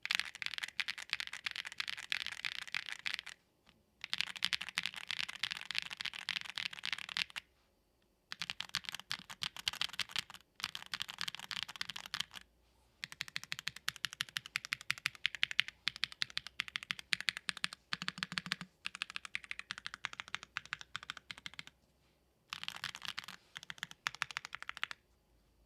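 Typing on a Tofu65 2.0 65% mechanical keyboard with Gateron Baby Raccoon linear switches, PBT keycaps, an FR4 plate and a brass bottom case. Fast runs of keystrokes come in several bursts, with short pauses between them.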